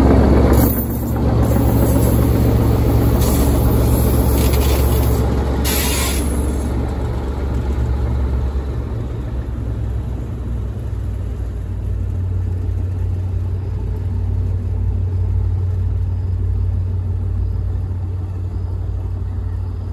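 KTMB Class 19 diesel shunting locomotive running with flatbed wagons: a deep, steady engine rumble, loudest as it passes close and growing fainter as it moves away down the track. A few brief bursts of high hiss come in the first six seconds.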